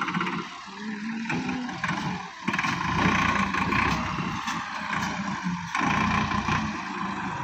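Massey Ferguson 260 tractor's diesel engine working under load as it pulls a trolley heaped with sand, surging louder about two and a half seconds in and again about six seconds in.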